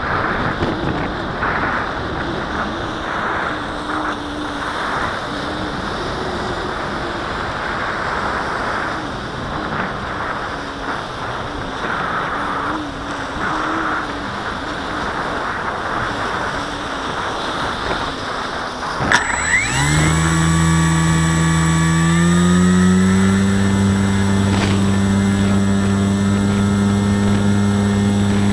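Wind rushing while the Parkzone Radian glides with its motor off; about two-thirds of the way in, its electric brushless motor and propeller start, the whine rising in pitch for a few seconds and then holding steady and louder under power.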